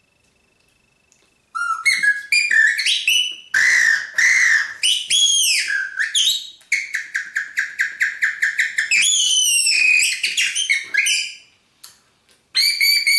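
A Birdywhistle, a small bird-call whistle held in the mouth, blown to imitate birdsong: warbling, swooping whistled notes and a fast trill, starting about a second and a half in. The whistling breaks off briefly near the end and then starts again.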